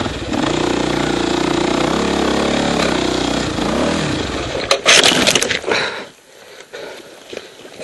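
Dirt bike engine running as it climbs rocky ground, its pitch dropping near four seconds. About five seconds in there is a loud crash as the bike goes down, then the engine stops and only light scuffing and clatter remain.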